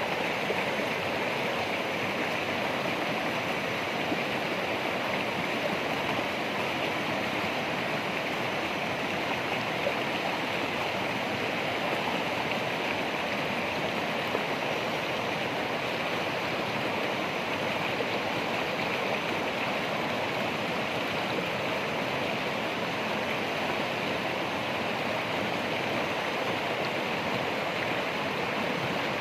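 Water in a stream flowing steadily, an even rushing with no swells or breaks.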